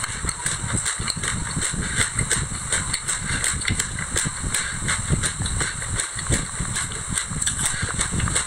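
Close-miked chewing of a mouthful of white sesame seeds mixed with passion fruit pulp: a steady run of small crisp crunches and clicks.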